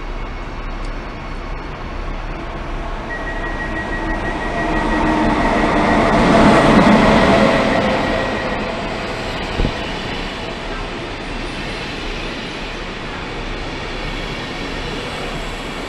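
Electric locomotive-hauled passenger train of SBB coaches pulling into a platform: the red locomotive approaches and passes loudest about six to seven seconds in, with a thin high whine as it comes up. The coaches then keep rolling past steadily, with one sharp knock a few seconds after the locomotive passes.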